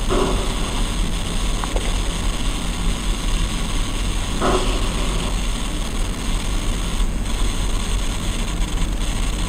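Coil whine from a 2019 Razer Blade Stealth laptop: a loud, steady electrical buzz and hiss, with two short chirps, one at the start and one about four and a half seconds in.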